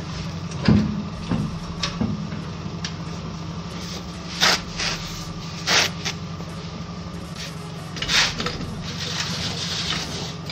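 Hydraulic trolley jack being worked under a car to lift the fuel tank back into place: a few sharp metallic clunks in the first two seconds, then three short scraping strokes, over a steady low hum.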